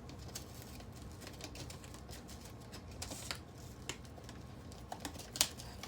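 Light, irregular clicking and scratching of hand tools working on model railroad track, prying and scraping at rails, plastic ties and track spikes, with two sharper clicks near the end.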